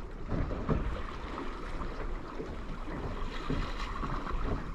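Wind on the microphone and choppy sea water lapping against the hull of a small boat, an uneven rumbling noise.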